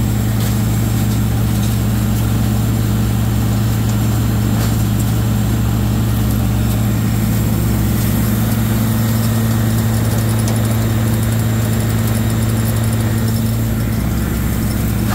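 Rotochopper MP2 horizontal grinder running on its Cat C7 diesel engine: a loud, steady, unchanging low drone.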